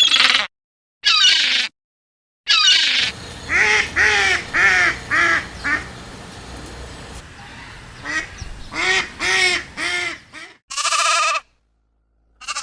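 Duck quacking in runs of short calls, about two a second: five quacks, a pause, then four more, with abrupt cuts between short clips.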